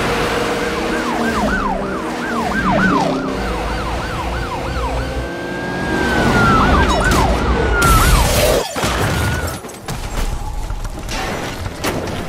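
Police car siren in a fast yelp, each cry falling in pitch several times a second. Past the halfway point it changes to a long held wail that slides down, then cuts off sharply. Rougher noise with a few sharp knocks follows.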